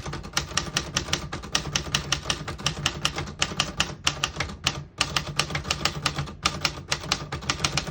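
Typing on a 1967 Smith-Corona Corsair manual portable typewriter: a fast, even run of type bars striking the platen, about six keystrokes a second, with two short pauses midway.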